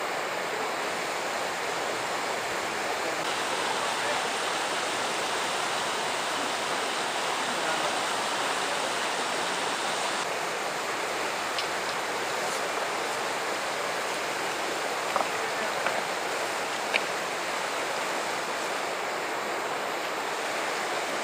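Fast-flowing river water rushing steadily past the bank, with a few short sharp ticks some fifteen to seventeen seconds in.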